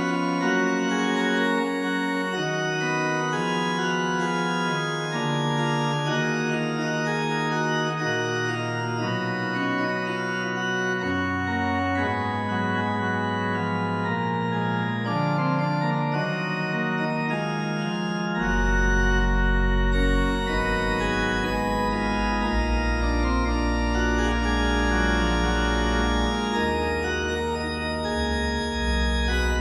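Slow organ music of long held chords that shift every few seconds. Lower bass notes come in about eight seconds in, and a much deeper bass about eighteen seconds in.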